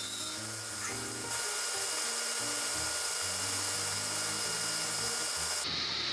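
1908 Fay & Egan table saw running with its blade spinning: a steady whir with a few faint steady whining tones, growing louder about a second in.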